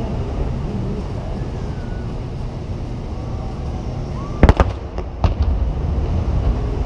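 Aerial fireworks shells bursting: a quick cluster of sharp bangs about four and a half seconds in, then two more within the next second, over a steady low background rumble.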